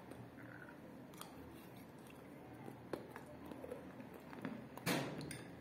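A person eating a spoonful of kaolin clay soup with chalk pieces: chewing mouth sounds with a few small clicks, and one louder, sharper mouth noise near the end.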